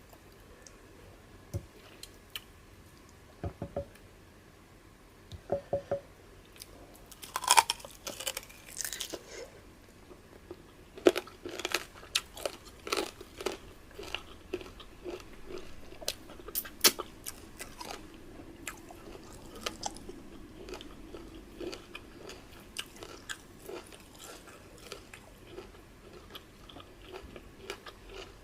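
Close-miked eating of fufu, peanut soup and meat with the hands: chewing and biting with wet smacks and sharp crunches, the loudest crunches about a third of the way in and again near the middle.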